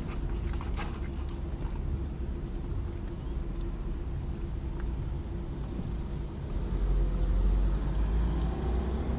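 Low, steady vehicle rumble heard from inside a car's cabin, swelling for a couple of seconds about seven seconds in.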